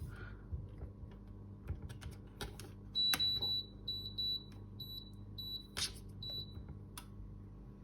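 Control panel of a Kitfort KT-6121-1 electric kettle beeping as its buttons are pressed to set the water temperature: a few light clicks, then a run of short high beeps from about three seconds in.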